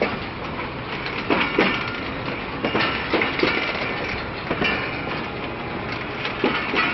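Pakistan Railways passenger coaches rolling past as the train pulls out, their wheels knocking over rail joints at irregular intervals, with thin high wheel squeal in places.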